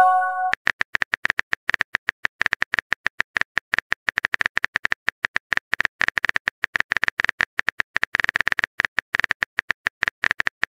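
A short chime of a text message being sent, then rapid, irregular keyboard tap clicks as the next message is typed on a phone keyboard.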